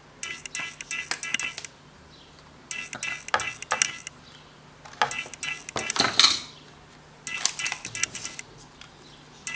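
Small hard parts clicking and rattling as an electronic diagnostic tool's casing and screws are handled during disassembly, in four bursts of a second or so each with short pauses between them.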